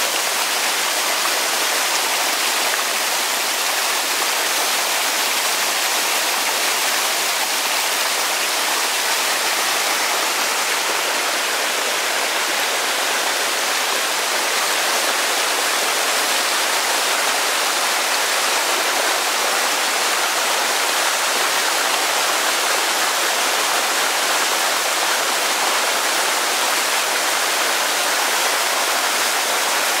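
Small waterfall cascading over rocks in a desert wadi, a steady rush of falling and splashing water.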